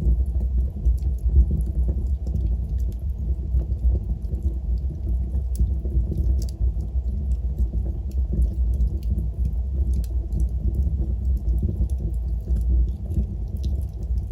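Wood fire burning in a fireplace: a steady low rumble of the flames with irregular sharp crackles and small pops scattered throughout.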